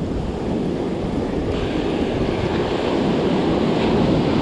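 Surf breaking and washing up the beach, with wind buffeting the microphone; the wash grows louder about a second and a half in.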